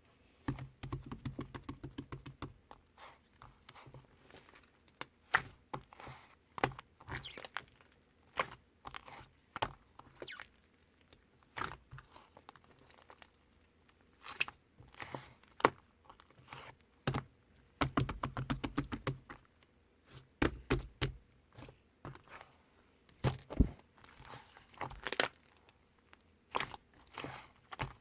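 Hands kneading and pressing slime: sticky squelching, pops and crackling clicks, with dense runs of rapid clicking near the start and again about two-thirds of the way through.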